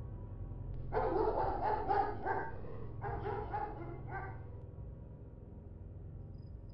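A dog barking in two quick runs of barks, the first about a second in and the second about three seconds in, over a steady low hum.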